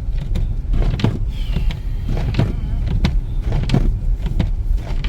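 Car cabin noise while driving through a blizzard: a steady low rumble of engine, tyres and wind, with a sharp swish recurring about every two-thirds of a second.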